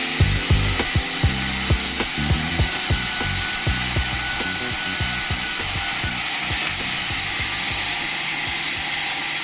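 Sawmill bandsaw running with a steady whirring hiss, with a rapid series of low knocks over the first half that thin out after about halfway.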